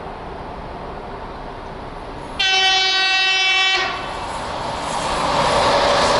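An EP2K electric locomotive hauling a passenger train sounds one horn blast of about a second and a half. After it, the noise of the approaching train rises steadily.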